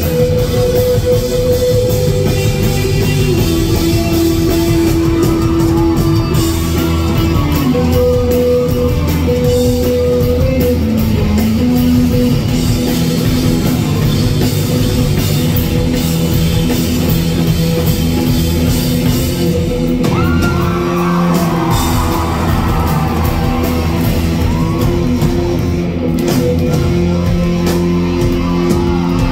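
Rock band playing live and loud, heard from the audience in a hall: distorted electric guitars, bass guitar and drum kit, with long held notes and sliding pitches. About two-thirds of the way through, high wavering notes rise and fall over the band.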